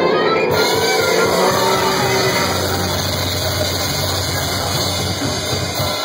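Heavily distorted electric guitars and bass holding a final chord with amplifier noise, the ringing end of a brutal death metal song. The chord stops shortly before the end.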